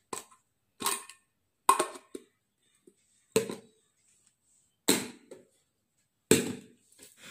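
Solimo airtight steel containers with blue clip-lock plastic lids being closed and stacked: about six separate sharp clicks and clunks, roughly a second apart, as the lids are pressed on and the containers are set down on one another.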